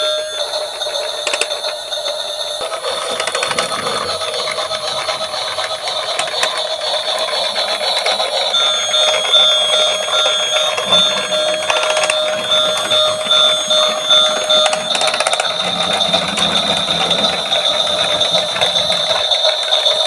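Battery-powered toy emergency-vehicle sirens sounding together in steady electronic tones, one of them pulsing, over a busy clicking and rattling of small toy cars rolling on a slope.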